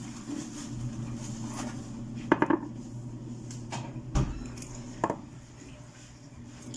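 Dishes and a glass container being handled on a kitchen counter: scattered clinks and knocks, a quick cluster of them a little over two seconds in, then single ones about four and five seconds in, over a low steady hum.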